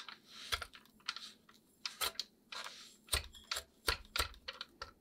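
Irregular light clicks and taps of a mixing bowl and utensils as cubed room-temperature butter and sugar are added to the bowl, with a brief soft hiss near the start.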